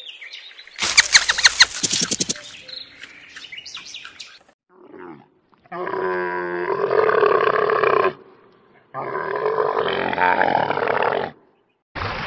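Dromedary camels calling twice, two long deep calls of a couple of seconds each, the second rougher than the first. Before them, about a second in, comes a rapid run of sharp clicks.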